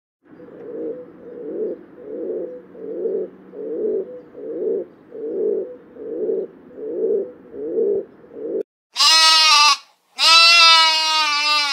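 Pigeons cooing, about ten low coos in a steady rhythm, followed near the end by a sheep bleating twice: a short bleat, then a longer one.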